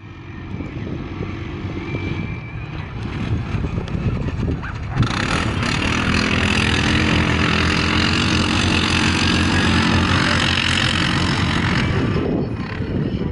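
ATV engine running loud and steady under hard acceleration, starting abruptly about five seconds in and ending near the end. Fainter engine and outdoor noise comes before it.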